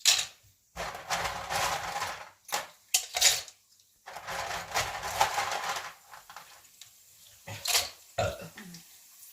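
Dried macaroni being added to hot cooking oil in several batches, each batch setting off a loud rush of sizzling hiss, with a couple of sharp clicks between batches.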